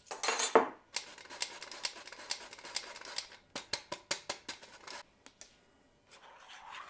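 Hand-crank metal flour sifter being cranked over a stainless steel bowl: a fast, irregular run of rasping clicks from the crank and screen for about four seconds, after a brief louder scrape at the start. Near the end a spoon scrapes shortening out of a metal measuring cup.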